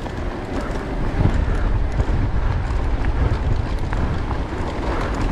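Strong wind buffeting the microphone while riding a mountain bike, a heavy rumble that grows louder about a second in, with light knocks and rattles from the bike over the trail.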